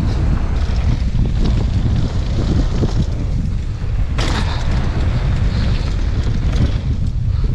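Mountain bike rolling fast down a dirt and gravel trail, its tyres rumbling and rattling over the ground, with heavy wind noise on the action camera's microphone. A sharper clatter comes about four seconds in.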